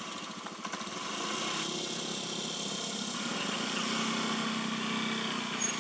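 A small engine running steadily, a little louder from about a second in.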